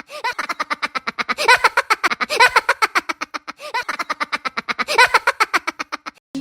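A rapid, high-pitched cartoon 'ha ha ha' laugh sound effect, pulsing about ten times a second and repeating in a loop.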